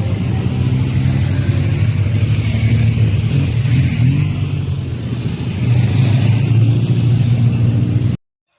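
Motor vehicle engine running with road noise, getting louder about five and a half seconds in, then cutting off abruptly just before the end.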